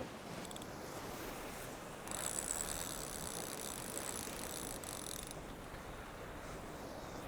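Fishing reel being wound, a fine mechanical whirring rattle for about three seconds in the middle, taking up slack line after the cast. Wind on the microphone underneath.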